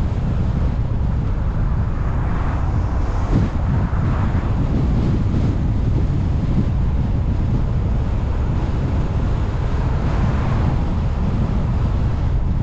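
Wind buffeting the microphone over the rumble of a car driving: a steady low rumble, with swells of hiss about two to four seconds in and again around ten seconds in.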